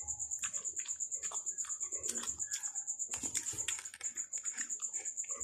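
Wet chewing and lip-smacking clicks of someone eating soft, ripe jackfruit bulbs, irregular and close to the microphone. A steady, pulsing high-pitched whine runs underneath.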